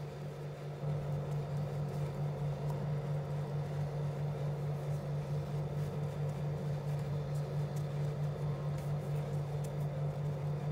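Steady low machine hum with a light hiss, unchanging throughout, like a fan or appliance motor running in the room.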